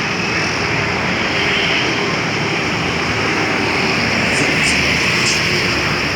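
Boat engine running steadily and loudly, swelling slightly about four seconds in, with a few faint high ticks.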